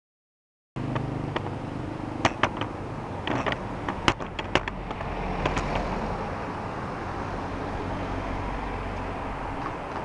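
City road traffic, with engines running and vehicles passing close by, one swelling past about midway. A cluster of sharp clicks and knocks comes in the first few seconds.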